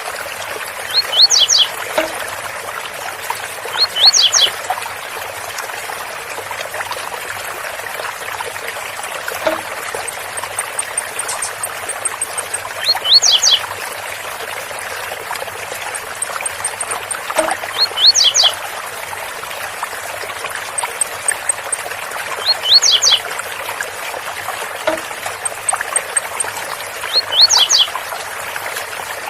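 Blue-black grassquit (tiziu) singing its 'Zel Zel' song: short phrases of a few quick, high sweeping notes, repeated every few seconds, about seven times. Under it the steady rush of a waterfall, with a faint, fast, very high ticking now and then.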